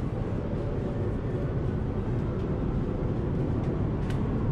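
Steady low rumbling background noise inside the aircraft cabin, with a few faint ticks and one sharp click about four seconds in.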